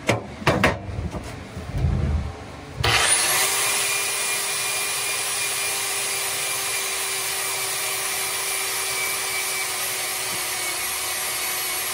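A few knocks, then about three seconds in an electric angle grinder starts up and runs steadily. It is held against the cast-iron pedestal of a 1935 South Bend lathe, abrading the paint and primer off its surface.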